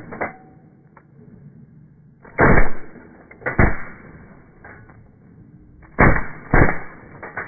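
Four shotgun shots fired at a passing duck flock, in two pairs: two shots about a second apart near the middle, then two more about half a second apart near the end, each a sharp bang with a short echo.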